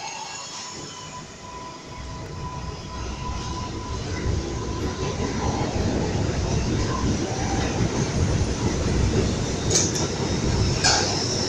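R62A subway train pulling out of the station, its cars rolling past with a rumble and wheel clatter that grow louder as it speeds up. A steady high whine runs through the first few seconds, and two sharp metallic hits come near the end.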